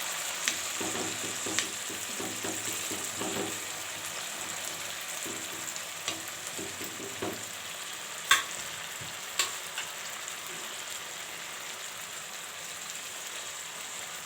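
Thin potato slices sizzling in shallow oil on a hot tava, a steady hiss with a few sharp clicks from a utensil or pan. The loudest click comes about eight seconds in.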